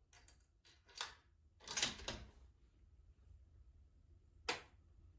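A handful of short clicks and knocks. The loudest is a rattling clatter about two seconds in, and a single sharp click comes near the end.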